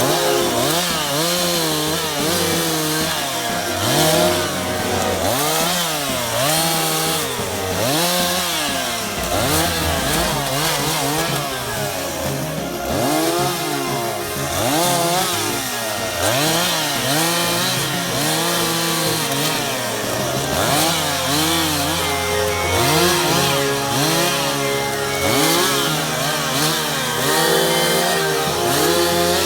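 Petrol two-stroke chainsaw revving up and dropping back over and over, about once a second, as it cuts.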